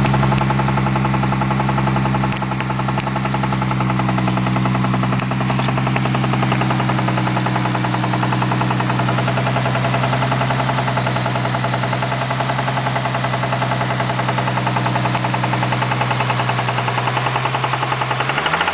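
Turbocharged Lexus IS300's inline-six engine running steadily with a regular knock through it, which the owner suspects is a spun bearing. The engine speed dips and rises near the end.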